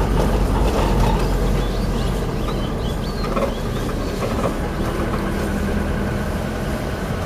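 Taxi driving along the road, heard from inside the cabin: a steady engine and road rumble that fades a little after the first second or so.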